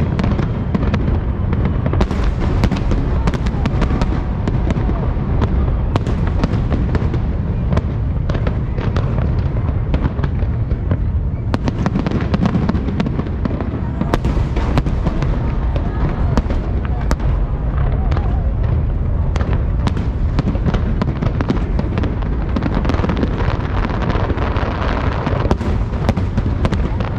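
Fireworks going off, with many bangs and crackles in quick succession over a steady low rumble.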